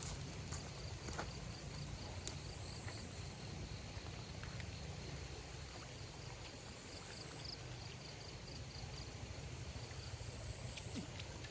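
Rural outdoor ambience: a faint insect chirping in a quick, regular series over a steady low rumble, with a few soft clicks.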